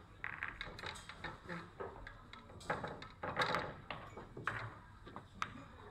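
Pool cue striking the cue ball and billiard balls clicking against each other: a series of sharp clicks scattered over a few seconds, the loudest about three and a half seconds in.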